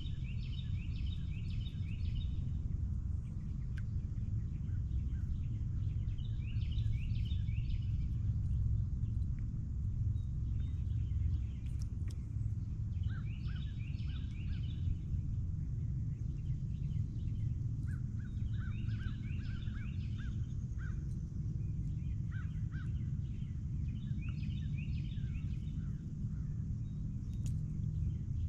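A songbird repeats a short phrase of rapid high notes about every six to seven seconds, with other lower chirps in between, over a steady low rumble.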